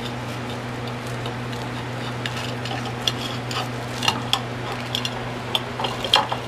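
Small knife sawing through stacked crisp-fried bread layers filled with mava (khoya), with scattered scrapes and light clicks of the blade against a glass plate, mostly in the second half. A steady low hum runs underneath.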